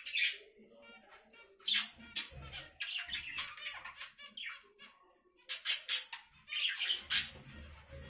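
Budgerigars chattering and squawking in a string of short, harsh, irregular calls, with the loudest cluster coming in the last few seconds.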